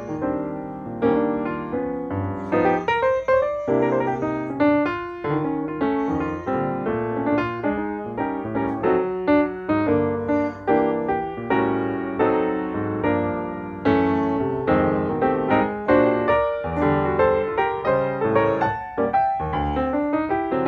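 Background piano music: a melody over chords, with notes struck in quick succession throughout.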